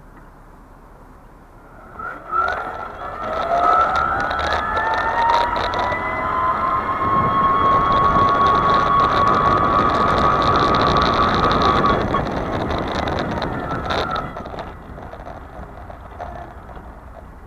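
Mobility scooter's electric drive motor whining as it pulls away: the pitch rises as the scooter gathers speed, holds steady at cruise over rolling and wind noise, then dies away as it slows to a stop.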